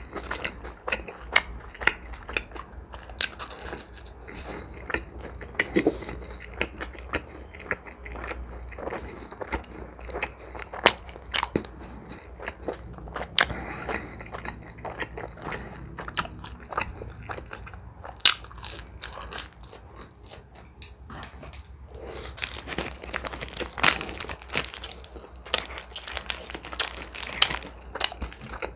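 Close-miked chewing of shrimp pizza and its crust: soft wet chewing broken by frequent sharp crunches, with a denser run of crunches near the end.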